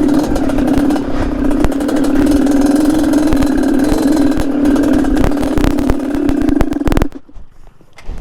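Two-stroke Yamaha RX-King engine of a DT trail bike running under throttle, with clattering knocks mixed in, then cutting out abruptly about seven seconds in.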